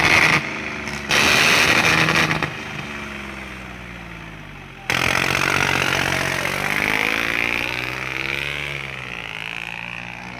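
A heavy vehicle's engine revving up and down. It breaks off abruptly about five seconds in, then comes back louder, rising in pitch and easing off again. Loud rough noise runs over the first couple of seconds.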